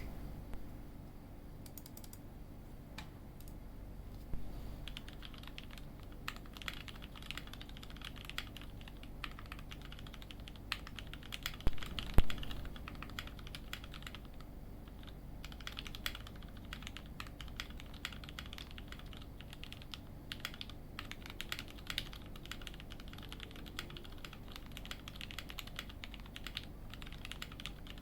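Typing on a Singa Unikorn custom mechanical keyboard fitted with Milky Gateron Yellow linear switches: a run of keystroke clacks, sparse at first and then steady and fast. A single much louder knock comes about twelve seconds in.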